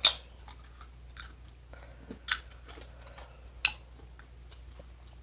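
Aluminium drink can being handled and opened: a loud sharp click at the start, then a few fainter clicks and taps.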